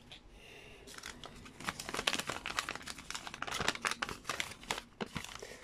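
A sheet of squared notebook paper, folded into a paper boat, crinkling and rustling as it is unfolded by hand. The sound is faint for the first second or so, then turns into dense crackling.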